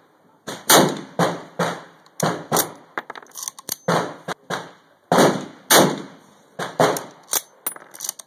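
Rapid gunfire: around twenty sharp shots in eight seconds, irregularly spaced and often under half a second apart, some loud and close and others fainter, each with a short echoing tail. The pace is too fast for one bolt-action rifle, so several guns are firing at once along the firing line.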